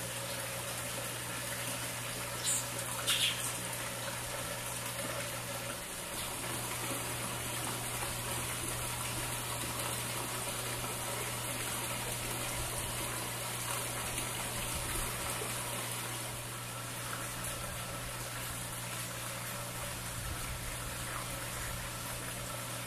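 Old Craftsman King-Seeley bench drill press running: a steady low electric-motor hum under a constant whirring rush from the belts and pulleys. The owner is trying to trace what causes this noise. A couple of brief higher sounds come about three seconds in.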